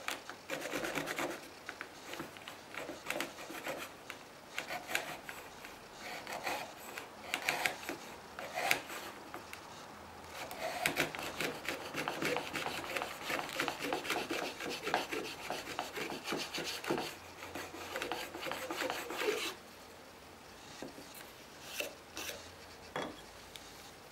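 Shop-built long-based hand router plane cutting wood: quick, repeated scraping strokes as the blade takes fine shavings while the plane is worked back and forth. The strokes become continuous in the middle, then die away to a few light knocks for the last few seconds.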